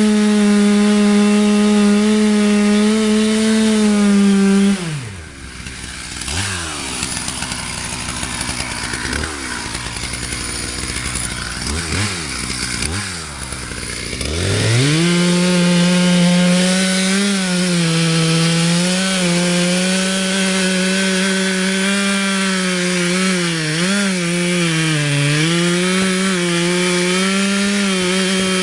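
Two-stroke chainsaw running at full throttle, dropping to idle about five seconds in, with a few quick throttle blips. About halfway through it revs back up and runs hard again, its pitch sagging and recovering now and then as it cuts through wood.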